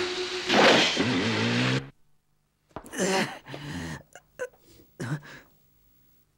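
A motorcycle engine revs hard over heavy rain noise: its pitch rises, holds, then shifts, and it cuts off abruptly about two seconds in. A man then groans and gasps several times in short bursts.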